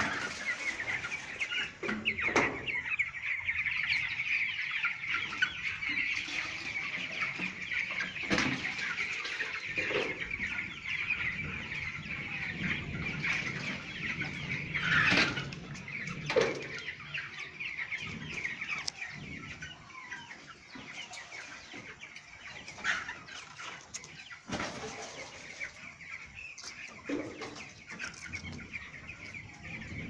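A large flock of young white broiler chickens calling all together in a dense, constant high chorus, with a few louder calls standing out. The chorus thins out in the last third.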